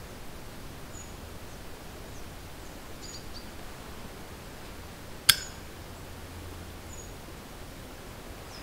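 Quiet woodland ambience: a steady hiss with a few faint, high-pitched bird chirps, and one sharp click a little past the middle.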